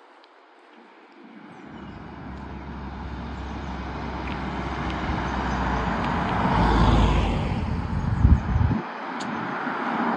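Two cars passing close by one after the other on a narrow road: a dark Audi saloon, its tyre and engine noise swelling to a peak about seven seconds in, then a Tesla Model 3, an electric car, rising again near the end. Bursts of low rumble come as each car goes by.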